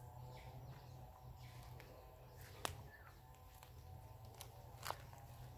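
Faint footsteps over dry soil and dead leaves, with a few short sharp clicks among them, against a quiet outdoor background.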